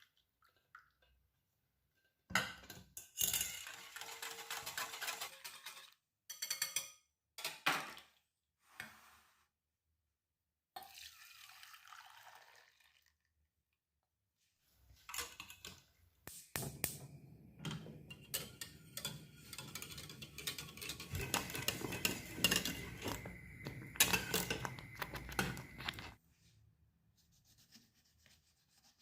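Kitchen utensils clinking and scraping against bowls and dishes during food preparation, in several separate spells broken by silences, the longest and busiest from about halfway through to near the end.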